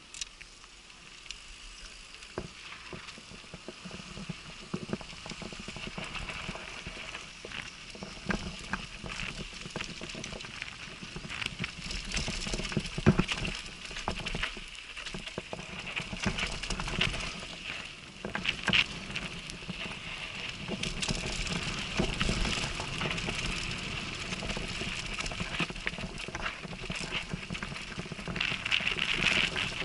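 Downhill mountain bike ridden fast down a dry dirt track, heard from the rider's helmet: tyres crunching over loose dirt and stones with frequent sharp rattles and clatters from the bike, getting louder over the first several seconds as speed builds.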